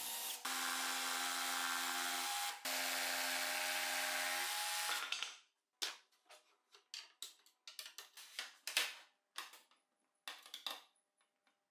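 Cordless drill boring holes through the work table top, running steadily for about four and a half seconds with a brief break about two and a half seconds in. Then scattered light clicks and knocks as metal router template rails are handled and positioned.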